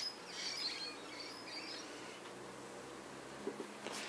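Faint bird chirps, a few short high calls in the first couple of seconds, over quiet outdoor background, with a couple of soft knocks near the end.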